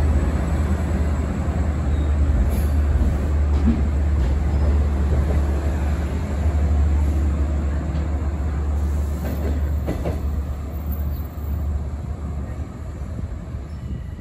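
LIRR bilevel diesel train rolling slowly past along the platform: a steady low engine rumble with the noise of the wheels on the rails and a few faint clicks. The rumble eases off near the end as the last car goes by.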